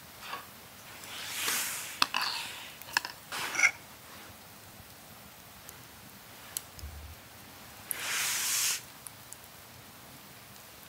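Close handling sounds of building a bacon-and-egg burger: a spoon scraping sauce onto a brioche bun, a few light clicks and taps, and brief rustling swishes, one about a second in and another about eight seconds in.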